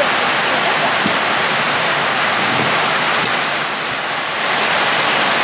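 A steady, loud rushing noise with no clear pitch or rhythm, dipping slightly a little before the end.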